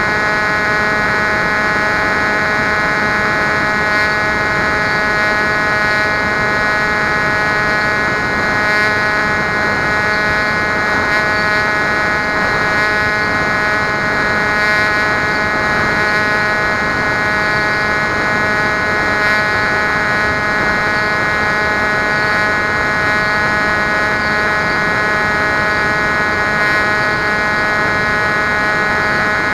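Bixler model plane's electric pusher motor and propeller heard from the onboard camera: a steady buzzing whine that holds one pitch throughout.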